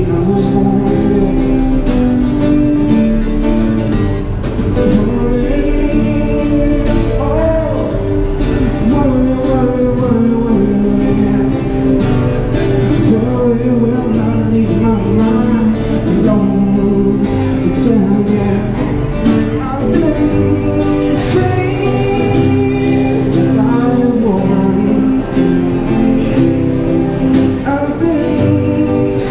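Man singing a song through a microphone while strumming an acoustic guitar, continuously and at an even level.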